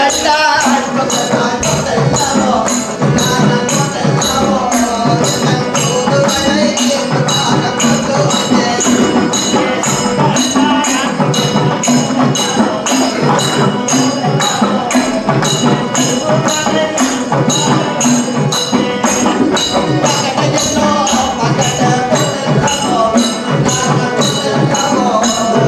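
Tamil koothu folk-drama music: a melodic line over a steady metallic jingling beat, about two strokes a second.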